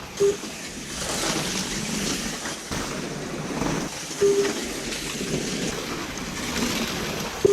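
Slot cars racing around the track: a steady, fluctuating rushing whir. A short beep comes about four seconds in and another at the very end.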